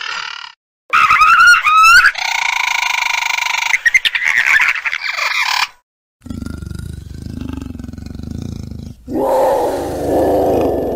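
A string of made-up dinosaur call sound effects. Sharp rising shrieks come about a second in, then a long, steady, high screech. After a short gap there is a low rumbling growl, and a louder roar near the end.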